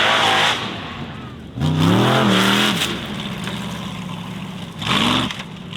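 Formula Offroad buggy's engine revving hard in surges: its pitch climbs sharply about a second and a half in, then falls back to a lower steady drone, and climbs again in a short burst near the end.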